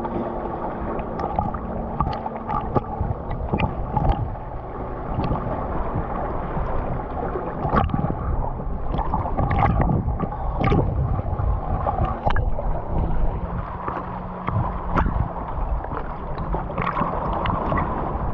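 Seawater sloshing and splashing against shore rocks, with many short splashes. A low steady engine hum comes and goes under it.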